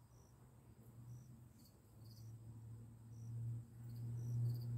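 Crickets chirping in short, high, repeated chirps about once a second, with a low hum that swells over the last couple of seconds.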